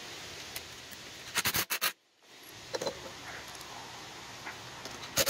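Two short clusters of sharp metallic clicks and clatter as the clutch bell is handled and fitted onto the GY6 scooter's CVT clutch, each cut off abruptly, over a steady hiss.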